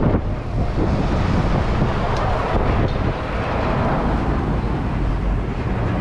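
Steady wind noise rumbling on a GoPro's microphone in a moving Ferris wheel gondola.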